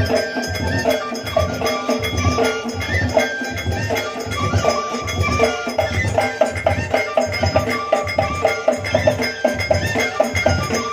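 Moroccan Amazigh ahwash music: a large drum beating a steady rhythm, with sharp percussion strikes over it and held voices singing.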